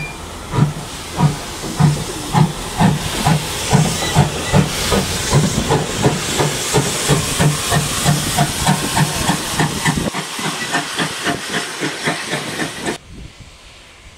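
GWR 813, a small 0-6-0 saddle tank steam locomotive, pulling away with sharp exhaust chuffs about two to three a second, quickening slightly, over a steady hiss of steam from its open cylinder drain cocks. The sound drops away suddenly about a second before the end.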